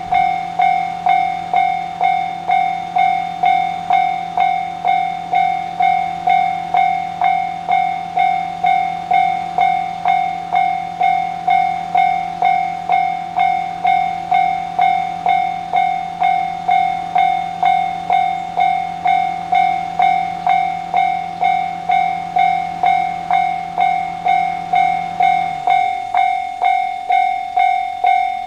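Japanese railway level-crossing warning bell ringing without a break, a bright electronic clang struck evenly a little under twice a second. Under it a low steady hum dips in pitch and stops about 26 seconds in.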